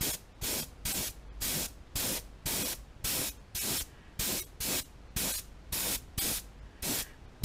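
Airbrush spraying in short, quick bursts, about two a second, as paint is lightly misted onto the side of a crankbait.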